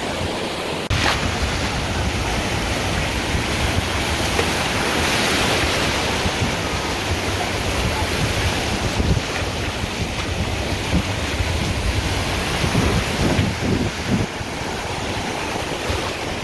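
Ocean surf washing and breaking in shallow water, with wind buffeting the microphone as a low rumble that starts after a sharp click about a second in.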